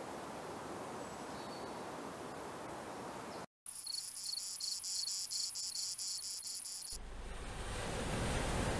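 Insects chirping in a pine wood: a loud, high-pitched shrill with even pulses about four a second for some three seconds, cutting off abruptly. Before and after it, a steady rush of surf and wind.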